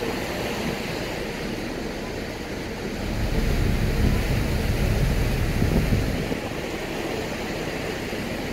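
Ferry underway: the engine's low running noise mixed with water rushing along the hull, with wind on the microphone; it swells louder for a few seconds in the middle.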